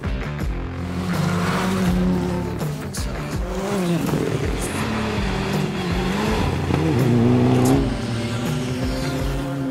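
Rally car engine revving, its pitch rising and falling several times as the driver works through the gears, over background music.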